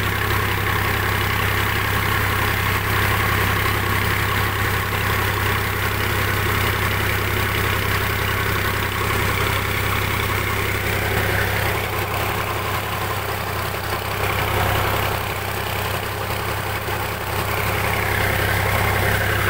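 Tractor's diesel engine running steadily with a deep, even hum, heard from the driver's seat as it moves through the field; it eases off a little in the middle before picking up again.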